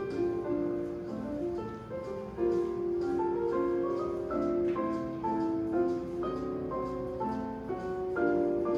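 Instrumental background music: a light melody of held piano-like notes.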